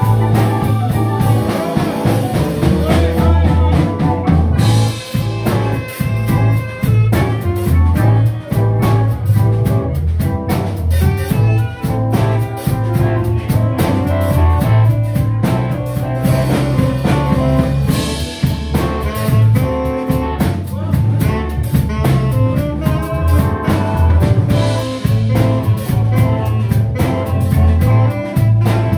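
Live band playing an instrumental number: saxophone over electric guitars, drum kit and keyboard, with a steady beat.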